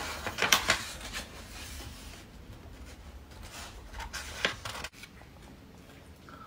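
Paper rustling as the pages of a thick book are handled and turned. It comes in short crisp bursts, loudest near the start and again about four seconds in.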